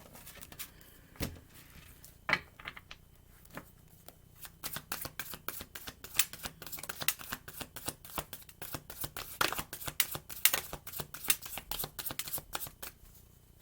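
A tarot deck being shuffled by hand: a few scattered taps and flicks of cards, then from about four seconds in a dense run of quick card clicks.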